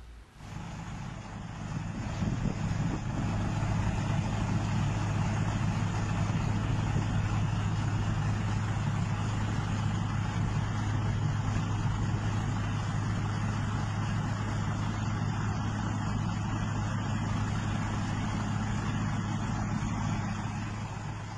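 Engine of heavy road-construction machinery running steadily, a constant low drone that fades in over the first two seconds.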